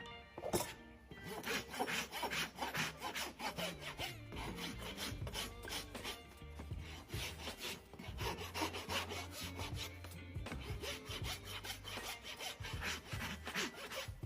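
Farrier's rasp filing a horse's hoof, in quick repeated back-and-forth strokes.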